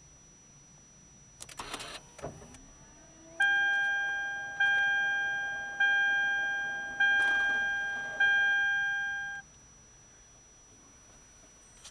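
2007 Lexus LS460L's dashboard warning chime dinging five times, about once every 1.2 seconds, each ding fading away, as the car fails to start with a Check VSC warning. A faint steady high whine runs underneath, and a short rustle with clicks comes before the chimes.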